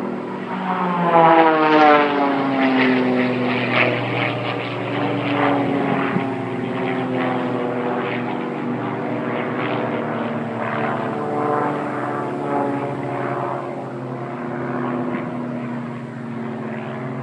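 Propeller-driven aerobatic display aircraft flying overhead. About a second in, one passes close, loudest here, with its engine note falling in pitch. Then several engines drone on together, their pitch wavering as they manoeuvre.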